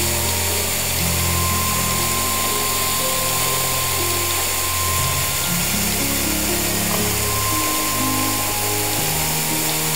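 Steady, loud rush of water falling at Ham Ham waterfall, mixed with background music of held low notes.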